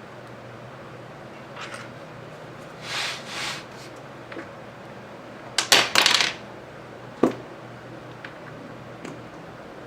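Prying tool scraping and working at the glass edge of an iMac A1418 screen. There are short scrapes: two softer ones about three seconds in, a louder cluster around six seconds in, then a single sharp click.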